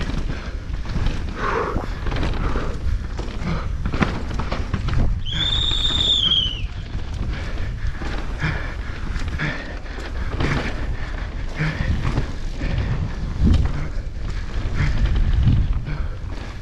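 Downhill mountain bike ridden fast down a rough trail, heard from a rider-mounted action camera: a constant rumble with many short knocks and rattles from the bike. A brief high squeal comes in about five seconds in, lasts over a second and drops in pitch as it ends.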